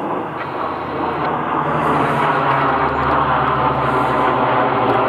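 Four-engine turboprop airtanker flying low overhead: a loud engine and propeller drone with a steady low hum, growing louder about a second and a half in as the plane passes over.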